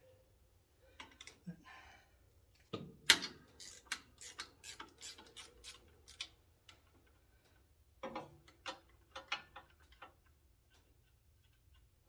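Clusters of sharp metallic clicks and clinks from a wrench working the alternator's mounting bolts, about two or three a second, with one louder clank about three seconds in.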